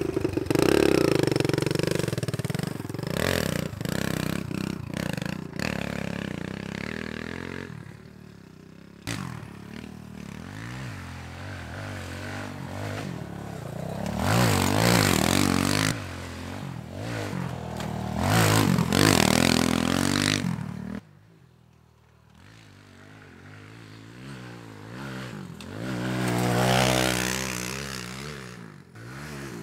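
Kawasaki KLX110 pit bike's small four-stroke single-cylinder engine revving up and down as it is ridden on a dirt trail. Its note rises and falls over several passes, and drops off suddenly about two-thirds of the way through before building again.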